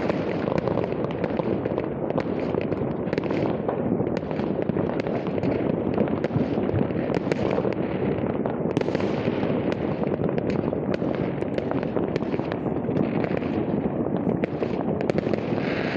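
Many fireworks going off at once: a dense, continuous crackle of overlapping pops and bangs with no break.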